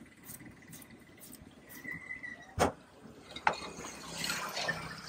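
Two sharp knocks about two and a half and three and a half seconds in, then hot oil in an iron kadai starts sizzling and hissing as freshly cut tapioca slices fry in it.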